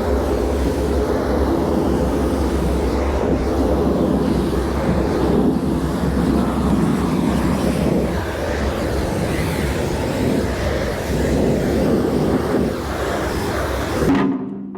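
Pressure washer spraying the dirty skid steer bucket: a steady loud hiss over a constant motor hum, cutting off abruptly near the end.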